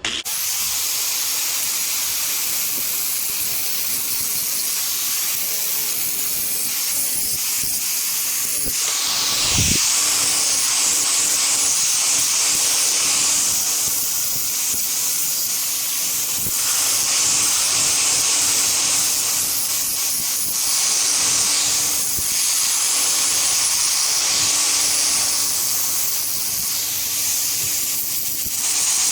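Angle grinder running continuously against metal, grinding paint off to bare metal ahead of welding. A steady high hiss carries a faint motor whine, with small swells in loudness as the wheel bears down.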